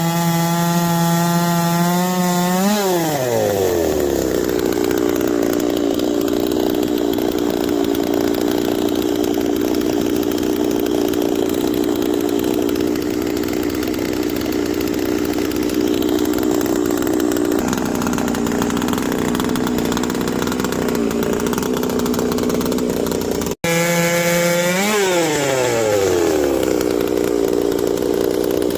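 Two-stroke chainsaw on a Norwood PortaMill PM14 chainsaw mill ripping walnut. It starts at full throttle, its pitch drops sharply as the chain bites into the log, and it runs steadily under load through the cut. Near the end the sound breaks off for an instant, and the same high revving and drop into the cut happens again.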